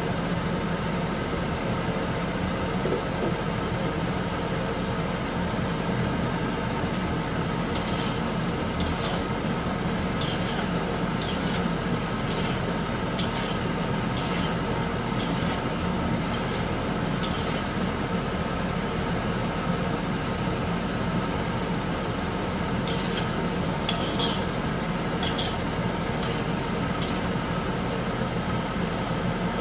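Beef fat and water simmering in a steel wok over a steady mechanical drone, with a metal spatula clinking and scraping against the wok in scattered clusters, first about a quarter of the way in and again later on.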